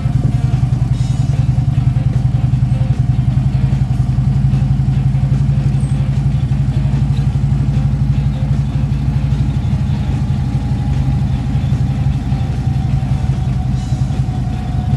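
Cruiser motorcycle engine running at a steady pace while riding, heard from the rider's seat.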